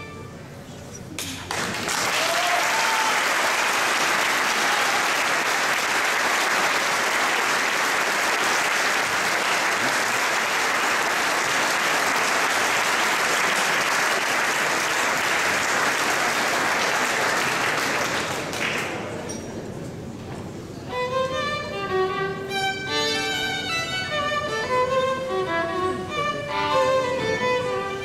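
An audience applauds for about seventeen seconds, beginning a second or so in and dying away. A violin then starts playing again, one note after another, until the end.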